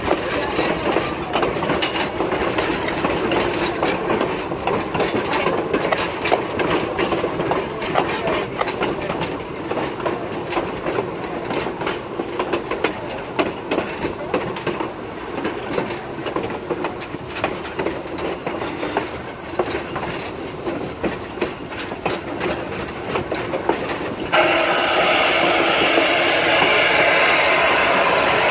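Passenger train rolling along, wheels clicking irregularly over the rail joints. About 24 seconds in, a loud steady hiss starts abruptly: the steam locomotive blowing down its boiler, a powerful jet of water and steam forced out of its side to clear sand and sediment from the bottom of the boiler.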